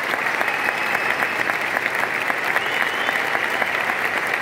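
Large arena audience applauding: dense, steady clapping from thousands of hands.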